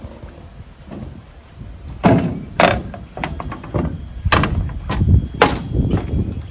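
Footsteps knocking on the wooden planks of a railway bridge walkway, about two steps a second from about two seconds in, over a low rumble.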